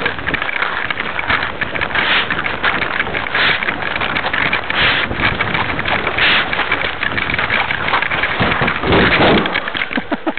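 Rushing noise and crackle on a handheld camera's microphone carried on foot, typical of wind buffeting and handling; it surges every second or two.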